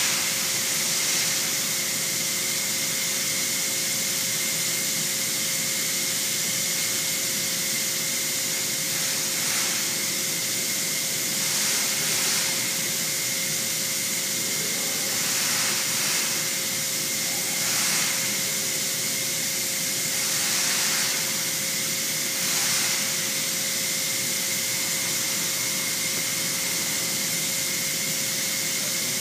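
Steady hiss with a constant hum and a higher whine underneath. From about nine seconds in, a few brief soft swishes rise over it.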